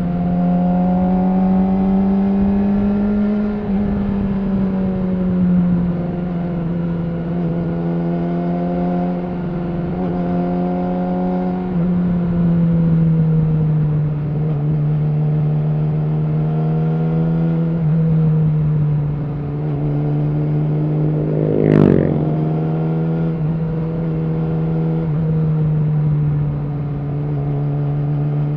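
Yamaha R6's inline-four engine through an Akrapovic slip-on exhaust, running steadily at cruising revs, its pitch easing up and down gently as the throttle changes. A short sharp burst cuts through about three quarters of the way in.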